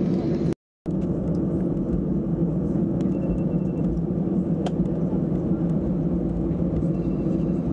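Steady cabin rumble of an Airbus A319 taxiing, the engines and airflow making a constant low drone. The sound cuts out completely for a moment about half a second in.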